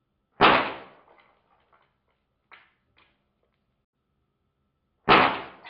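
Two shots from an Umarex 850 Magnum .177 CO2 air rifle, about four and a half seconds apart, each a sharp crack that dies away in about half a second as the pellet hits the phone-handset targets. Two faint clicks fall between the shots.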